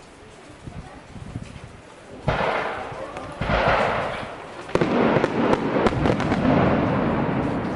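Fireworks going off: a sudden burst about two seconds in, another a second later, then a third with a run of sharp crackles, leaving a continuous rumbling wash of bursts.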